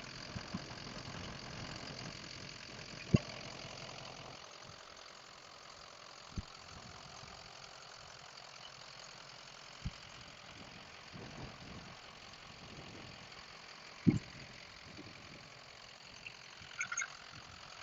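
The 6.0-litre Power Stroke V8 diesel of a Ford F250 idling, faint and steady, with a few short sharp knocks over the top.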